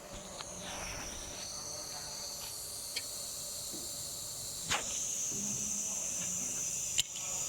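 CNC machine running with a steady high-pitched whine that drops in pitch early on and jumps higher about two-thirds of the way through. Three sharp clicks come about 3, 4.7 and 7 seconds in.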